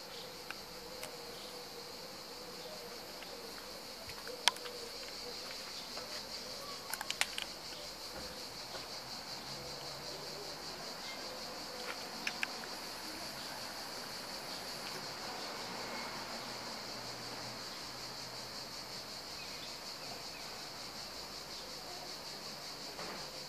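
Steady high-pitched drone of insects, with a few sharp clicks scattered through it, the loudest about four and a half seconds in.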